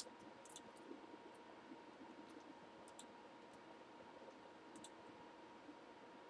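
Near silence with a few faint, separate computer-mouse clicks while a randomizer web page is opened.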